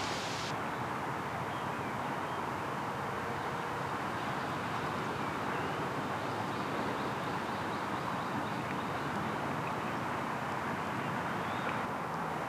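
Steady rushing outdoor noise at an even level, with a few faint high chirps.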